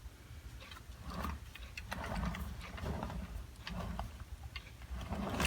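Faint, scattered light clicks and ticks at an uneven pace over a low background hum.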